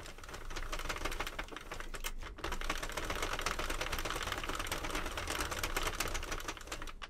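Sentro 48-needle plastic circular knitting machine being cranked steadily round, its needles clattering in a fast, continuous run of clicks as they rise and fall to knit a round.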